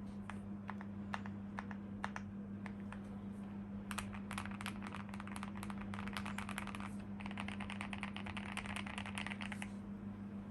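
MW65 mechanical keyboard with lubed Gateron Ink Black V2 linear switches, a polycarbonate plate and Cherry-profile keycaps being typed on. A few single keystrokes come first, then fast continuous typing from about four seconds in until shortly before the end. A steady low hum runs underneath.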